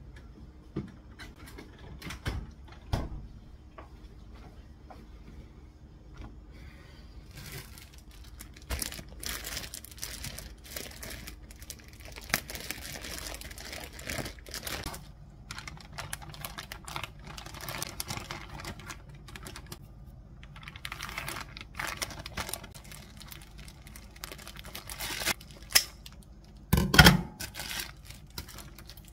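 Thin plastic bread bag rustling and crinkling as it is handled and wrapped, with scattered small clicks and knocks. There are a couple of sharp clacks near the end.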